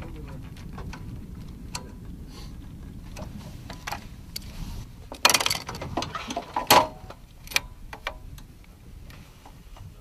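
Metal clicks and clacks of a belt-fed machine gun being handled with its feed cover open, with a louder rattling clack about five seconds in and another sharp clack a second and a half later.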